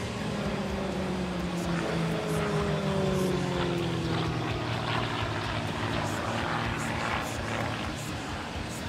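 GameBird GB1 aerobatic plane's propeller and six-cylinder Lycoming piston engine running hard overhead. From about one and a half seconds in, the engine note slides down in pitch over two or three seconds, then the drone holds steady.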